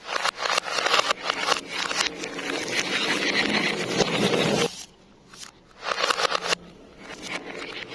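Marbles rolling and clattering along a marble run track, played in reverse: a dense run of clicks and rolling for about four and a half seconds, a short burst of clicks about six seconds in, then scattered softer clicks.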